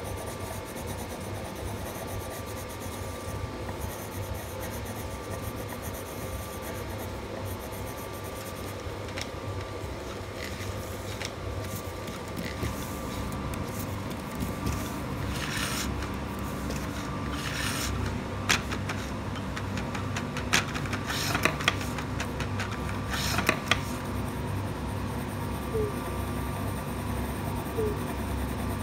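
Coloured pencil scratching back and forth on notebook paper as it shades in a drawing, with a run of louder rasping strokes and a few sharp ticks just past the middle, over a steady low hum.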